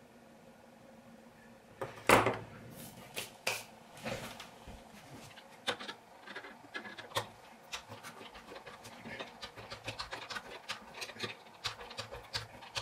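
Small irregular clicks, taps and scrapes of metal knife parts and small hand tools being handled during disassembly of a Zero Tolerance 0560 folding knife. They begin about two seconds in, with one louder knock at the start.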